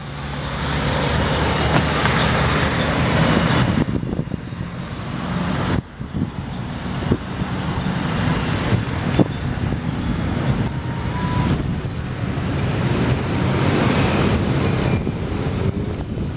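Steady road and traffic noise picked up by a camera fixed to a riding bicycle's handlebar, with a few sharp knocks along the way.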